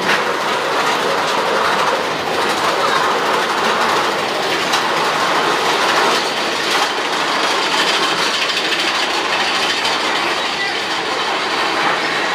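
Mine-train roller coaster running along its track, heard from on board: a loud, steady rumble of wheels on rail with occasional clacks. A faint high whine joins in about halfway through.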